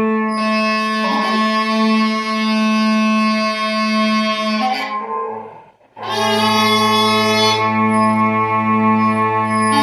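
Mouth-blown Scottish smallpipes playing, steady drones sounding under the chanter's notes. The sound dies away about five seconds in, and the pipes start up again a second later.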